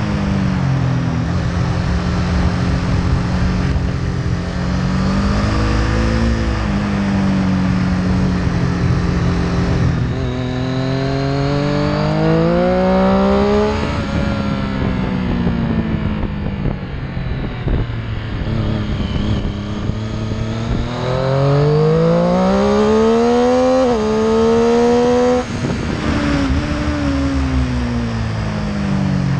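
Triumph Street Triple's three-cylinder engine heard from the rider's seat, pulling hard through bends: its pitch climbs steeply twice, falls away in between, and drops suddenly about 25 seconds in. Steady wind and road noise run underneath.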